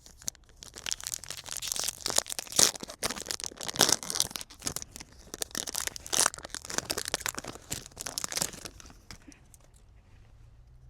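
Card-pack wrapper being torn open and crinkled in the hands: close, crackly rustling with several louder rips, dying away near the end.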